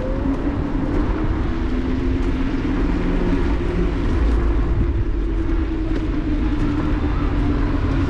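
Riding noise of an Apollo Explore electric scooter on city streets, picked up by a camera on its handlebars: a steady low rumble of wind and road with a steady hum held throughout.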